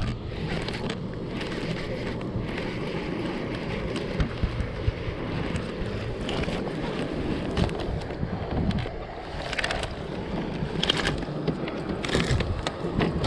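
Steady wind noise buffeting the microphone out on open water, with scattered light clicks and knocks from the baitcasting reel, the rod and the fish being handled in a plastic fishing kayak.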